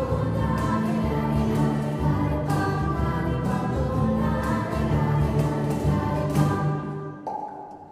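Choir singing with a band of strummed acoustic guitars and keyboard, to a steady beat of about two strokes a second. About seven seconds in the music thins out and quietens to a single held note.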